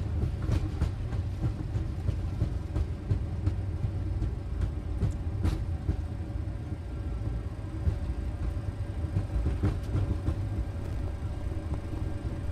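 Boeing 737-800 cockpit noise on the landing rollout under manual braking: a steady low rumble from the wheels and airframe rolling on the runway, under a faint steady hum, with a few light clicks.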